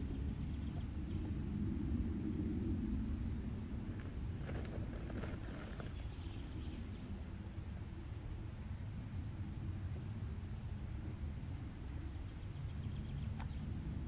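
Small songbirds singing, one repeating a high quick chirp about six times a second in several long runs, over a low steady background rumble. A few brief clicks about four to five seconds in.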